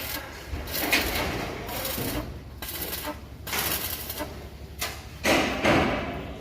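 Irregular knocks and scrapes from repair work, over a steady background hum; the loudest comes a little over five seconds in.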